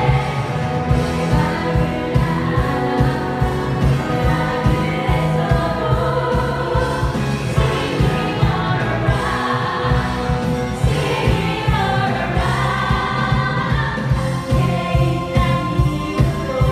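Several women singing a pop song live together, with their voices layered over accompaniment that has a steady beat.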